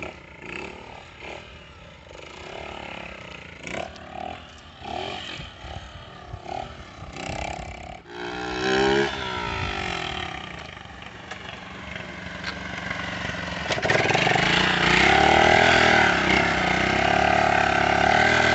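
Small street motorcycle engine revving again and again, its pitch rising and falling with the throttle as the rider holds a wheelie. It is faint at first and becomes much louder for the last few seconds as the bike passes close by.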